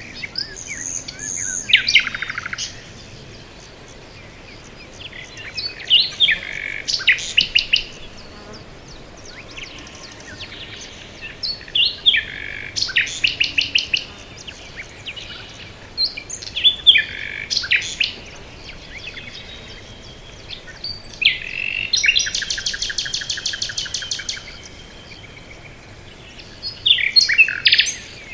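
A songbird singing, repeating a short high song of two to three seconds about every five seconds, six times, several songs ending in a fast even trill. A faint steady hiss runs underneath.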